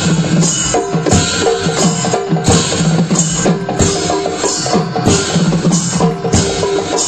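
Ensemble of traditional northeast Indian folk drums beaten in a fast, steady rhythm, with a wind instrument repeating a short phrase over them.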